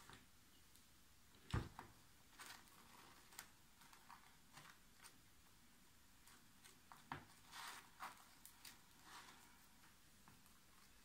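Faint scraping and light taps of a table knife spreading honey across a slice of toast, with a sharper knock about one and a half seconds in.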